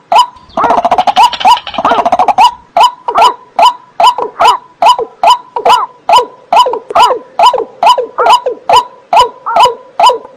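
Marsh bird calling loudly: a fast, even series of short barking notes, about two and a half a second, with a harsh burst of rattling calls between about half a second and two and a half seconds in.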